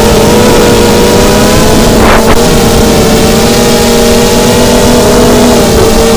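The brushless motors and propellers of a 250-size FPV quadcopter (DYS BE1806 2300kv motors) whining steadily in flight, heard from its onboard camera, the pitch wavering slightly. A brief burst of noise cuts in about two seconds in.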